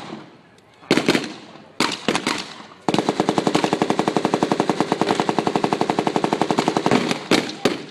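Blank gunfire from a WWII reenactment battle: a few single shots about a second apart, then a long rapid machine-gun burst lasting about four seconds, then two more single shots near the end.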